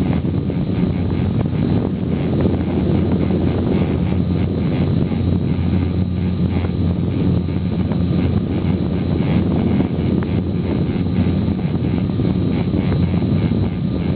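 Gaui 330X quadcopter's brushless motors and propellers running steadily in flight, heard close up from the camera on board. A steady hum carries a thin, constant high whine above it.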